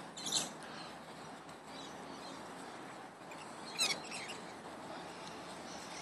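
Small green parakeets giving faint, brief high chirps: one short call just after the start and a quick run of chirps about four seconds in.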